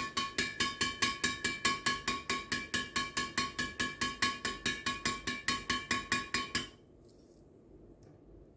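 Strings of a badminton racket, Hiqua Gold Lite strung at 27 lbs in a Felet Visible Nano 66, struck in a rapid, even series of about six hits a second, each a sharp ping with a short ring. The hits stop suddenly near the end.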